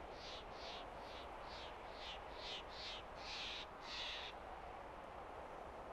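A bird calling in a run of about nine short high notes over some four seconds, the last two longer and louder, over a steady hiss of mountain wind.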